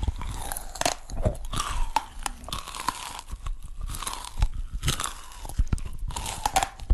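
Close-miked eating of a cake shaped like a wooden hairbrush: biting and chewing, heard as irregular sharp crackles and mouth sounds.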